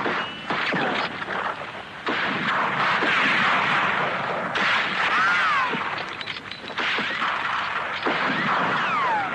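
Recorded gunfight sound effect: gunshots in dense bursts, with whining ricochets falling in pitch, one about halfway through and one near the end.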